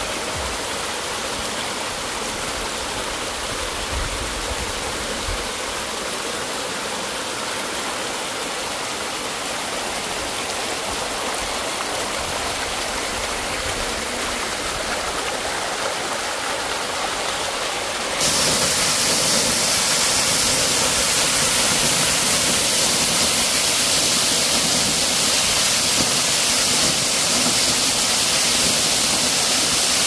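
Steady rush of a waterfall and of water tumbling over rocks in a stream. About eighteen seconds in it turns suddenly louder and hissier: the spray of water pouring down a rock face, heard close up.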